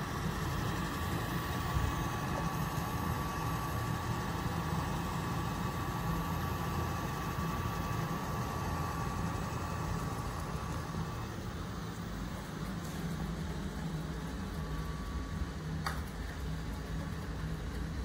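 Dreame D10 Plus Gen 2 robot vacuum and its self-emptying base running: a steady motor and airflow whir with a thin whine that stops about eleven seconds in, while the rumble carries on.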